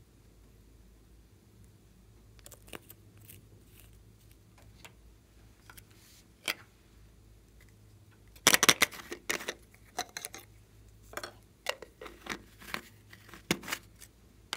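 Fingers handling a small rainbow-striped bottle: faint occasional clicks at first, then a burst of sharp clicking and crackling about eight and a half seconds in, followed by scattered clicks.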